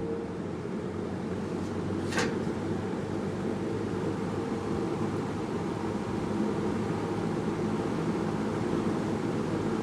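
Lasko 20-inch Deluxe Ultra Cooler box fan, a direct-drive motor turning a five-blade metal fan, running on low speed: a steady rush of air and motor hum that builds over the first few seconds as it comes up to speed, with a single click about two seconds in. The fan is unserviced and its blades are caked with dust.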